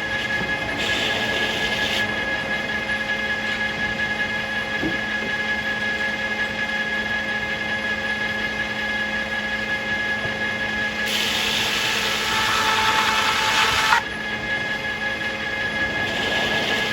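Circular sawmill running with a steady machine hum, growing louder and brighter from about 11 s and cutting off abruptly about 14 s in.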